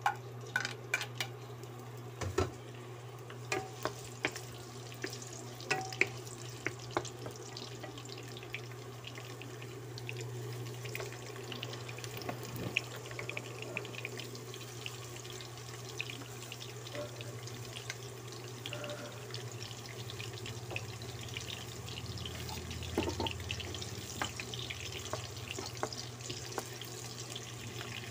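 Chopped onions sizzling in hot oil in a nonstick wok, the sizzle growing a little louder about ten seconds in. A wooden spatula clicks and scrapes against the pan, most often in the first several seconds, over a steady low hum.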